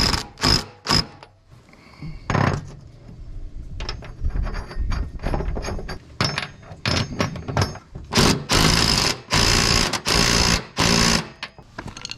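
DeWalt 20V Max cordless impact driver hammering in repeated bursts as it tightens the nuts on new mower deck spindles and pulleys. The bursts grow longer about two-thirds of the way through.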